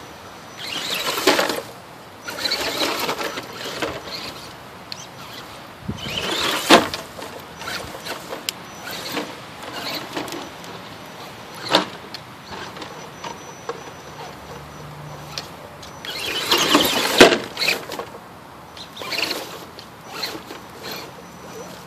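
Axial SCX10 RC rock crawler's electric motor and gears whirring in short bursts of throttle as it climbs over a log and rocks, with a few sharp knocks along the way.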